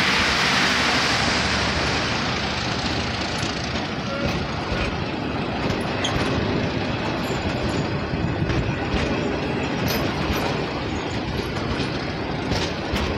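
Passenger train carriages rolling past close by: a steady rumble of wheels on the rails with a few sharp clicks. A hissing rush is loudest at the start and eases over the first couple of seconds.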